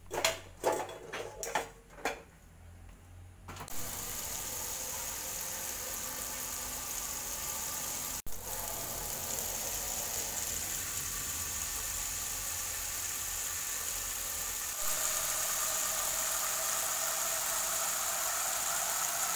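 Dishes and metal clinking several times as a pot is pulled out of a wire dish rack, then a tap running a steady stream of water into a metal pot in a stainless steel sink, getting a little louder for the last few seconds.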